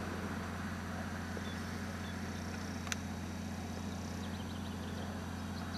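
Steady low hum with a faint hiss, with a single sharp click about three seconds in and faint, short high chirps near the end.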